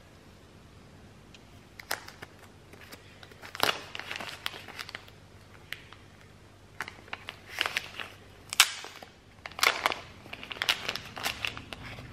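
Thin wrapping sleeve crinkling and rustling as a small camera accessory is unwrapped by hand, in short irregular bursts with a few sharp clicks of plastic parts.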